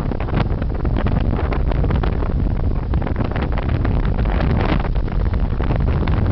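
Strong wind over an aircraft carrier under way buffeting the microphone: a loud, steady low rumble with constant gusty crackle.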